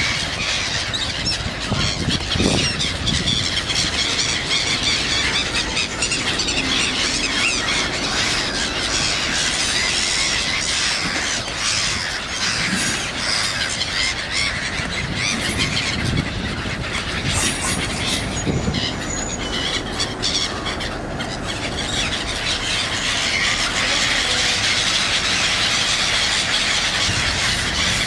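A large flock of black-headed gulls calling all at once, a noisy, continuous chorus of shrill squealing cries with wings flapping, while a small diesel railcar pulls in underneath it.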